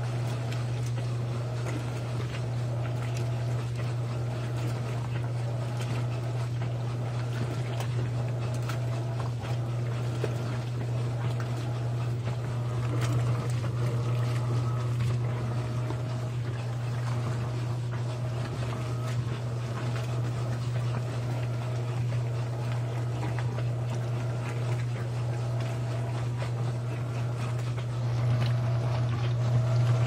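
Electrolux LAI17 17 kg top-load washing machine agitating a load of towels: a steady hum from the machine under rhythmic swishing and sloshing of the wet wash. It gets a little louder near the end.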